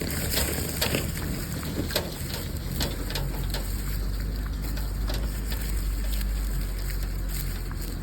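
Wind buffeting the microphone as a low rumble that grows steadier and stronger about a third of the way in, with scattered crackles and clicks, most of them in the first few seconds.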